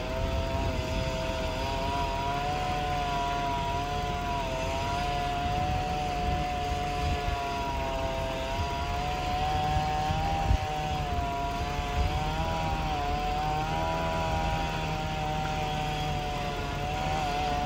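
Chainsaw running at high revs while cutting, its pitch wavering and dipping steadily up and down.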